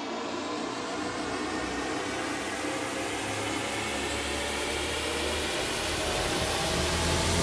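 Cinematic riser sound effect: a wash of noise that swells steadily louder and brighter, with faint tones gliding upward beneath it, building toward a hit.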